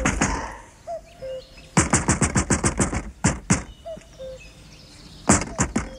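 Rapid knocking on a wooden front door, in quick volleys of about eight knocks a second: one fading just after the start, a longer one of about two seconds in the middle and a short one near the end. Small birds chirp between the volleys.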